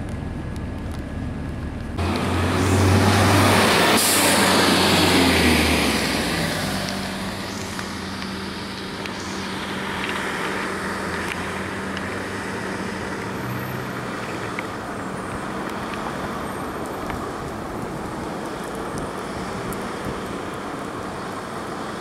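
2002 Blue Bird CS transit bus with a Cummins ISC diesel and Allison B400R automatic, driving away. It is heard first briefly from inside the cabin; about two seconds in the sound turns to the roadside and is loud for a few seconds, then settles to a steady engine drone over traffic noise.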